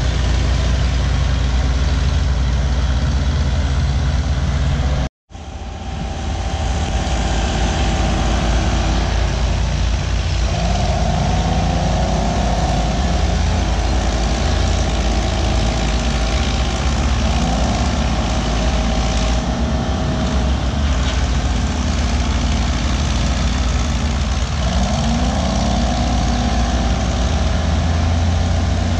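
Heavy diesel engines of several antique crawler dozers running under load as they push dirt, with engine pitch rising and falling a few times as the machines work. The sound cuts out for a moment about five seconds in.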